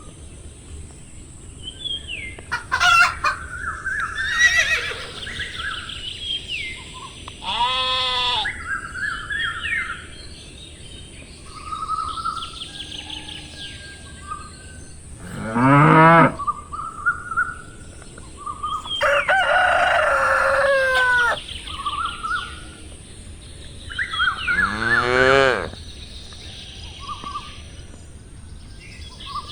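Farmyard animal sounds: chickens clucking and chirping throughout, with four loud, long crows or calls standing out about 8, 16, 20 and 25 seconds in.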